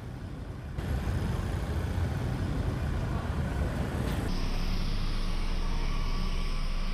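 Busy street ambience with road traffic: a steady rumble of passing vehicles. The sound changes abruptly about a second in and again about four seconds in.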